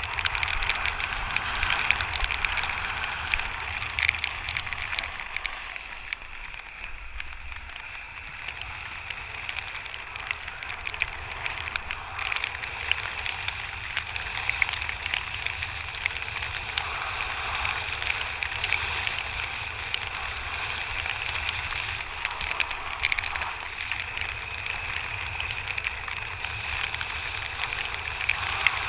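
Kiteboard skimming over choppy water: a steady rushing of water and spray, with many small taps of rain and spray striking close to the microphone. It eases off a few seconds in, then picks up again.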